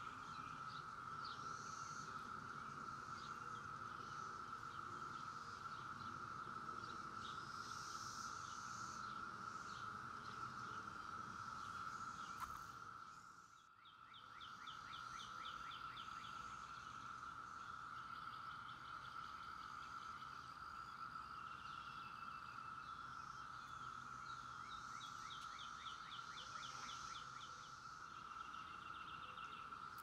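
Chorus of Brood X 17-year periodical cicadas: a steady, even drone with high bird chirps and fast trills over it. The drone dips briefly about halfway through, then returns.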